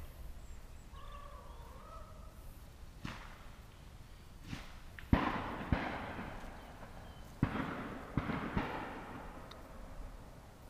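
Shotgun shots echoing across a valley: about seven reports, two faint ones first, then louder ones (a pair about halfway, another pair near 8 s), each trailing off in a rolling echo.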